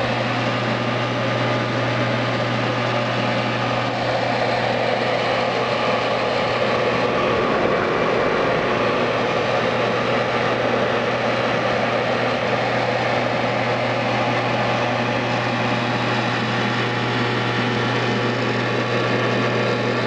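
A computer running loudly: a steady low hum under a constant rushing noise.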